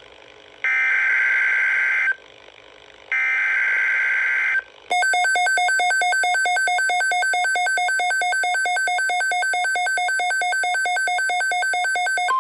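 Emergency Alert System header data bursts: two harsh digital screeches about 1.5 s long, a second apart. Then, from about five seconds in, a fast-pulsing electronic alert beep sounds steadily for about seven seconds, signalling the start of a weather alert.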